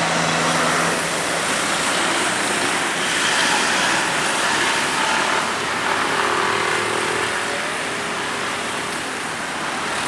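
Road traffic noise: a steady rush of tyres and engines from vehicles passing on the road, swelling slightly a few seconds in and easing toward the end.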